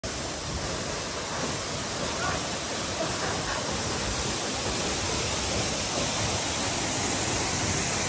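Steady, even rush of a tall waterfall pouring down a rock face.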